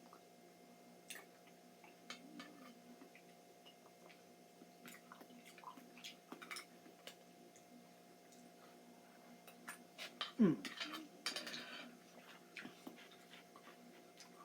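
Scattered light clicks and clinks of utensils against a can while eating pears. About ten seconds in comes one short, loud sound that falls in pitch, then a brief rustle.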